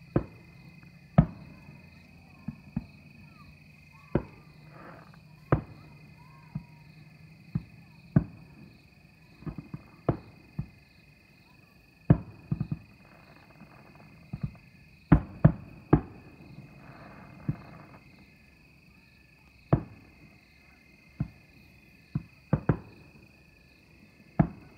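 Aerial fireworks shells bursting: a string of sharp bangs at irregular intervals, about two dozen, some coming in quick clusters of two to four. Under them runs a steady high chirring of night insects.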